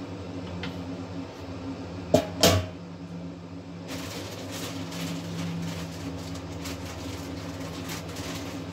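Steady low hum of brewing equipment. A little over two seconds in come two sharp knocks, a black slotted plastic spoon being set down on a steel mash tun lid, followed by faint scratchy, crackly noises.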